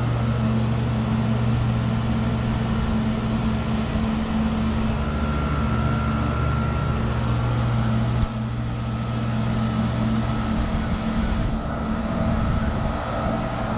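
Trane Odyssey heat pump running through a defrost cycle: a steady mechanical hum, with a sudden click-like change about eight seconds in after which the low hum drops a little.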